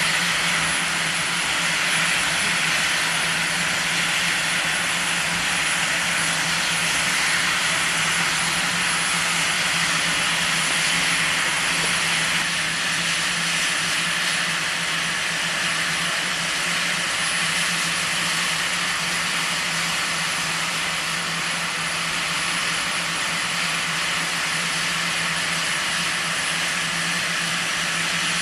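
FS class 740 steam locomotive standing with a steady, unbroken hiss of escaping steam, with no chuffing beats.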